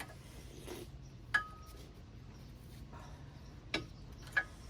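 Metal clinks of a new brake pad being seated into a disc-brake caliper bracket: three sharp clicks, the first about a second in the loudest with a short ring, the other two near the end.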